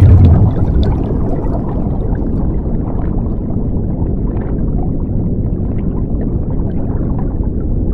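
Underwater bubbling and rumbling sound effect, with a loud surge of bubbles at the start that settles into a steady deep gurgling rumble.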